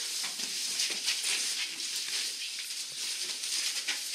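Rustling and shuffling of a group of children moving together, clothes brushing and feet scuffing on the floor, a steady hiss broken by many small scrapes.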